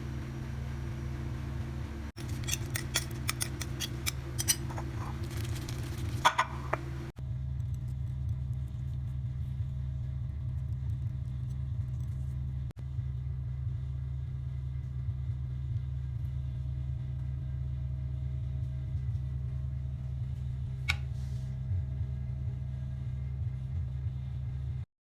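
Steady low mechanical hum with a run of light metallic clicks and clinks from about two to seven seconds in.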